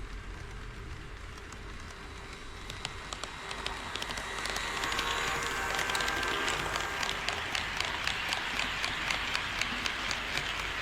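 HO-scale model train running on KATO Unitrack, its wheels clicking evenly over the rail joints about three times a second. The running noise grows louder from about four seconds in as the train comes closer.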